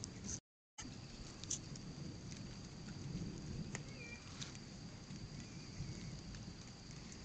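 Rain pattering steadily in a thunderstorm, a dense even hiss with scattered small ticks. The sound cuts out completely for a moment about half a second in, and a short high chirp comes about four seconds in.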